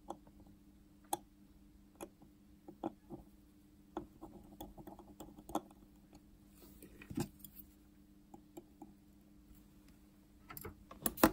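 Sparse small metallic clicks and taps of a watchmaker's screwdriver working on the pallet bridge screws of a Seiko 7S36 watch movement, with a quick run of clicks near the end. A faint steady hum lies beneath.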